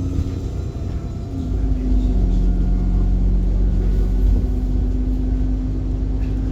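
Alexander Dennis Enviro bus running: a low rumble that grows louder about a second and a half in, with a steady hum underneath.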